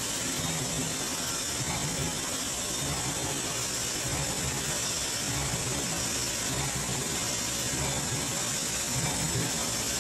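Automatic horizontal cartoner running: a steady mechanical clatter under a constant high hiss.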